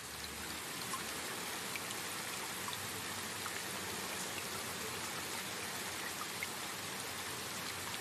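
Steady rain: an even hiss with small scattered drop ticks.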